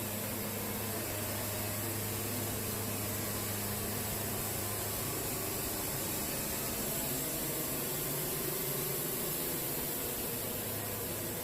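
Wood-Mizer band sawmill running steadily: an even machine hum under a constant hiss, with no break or change.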